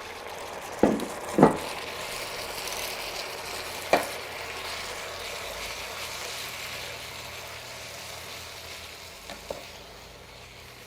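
Grated sweet potato being stirred into coconut cream and curry paste just coming to the boil, with a steady sizzling hiss that fades slowly. A few sharp knocks of the utensil against the pot, two about a second in, one near four seconds and a lighter one near the end.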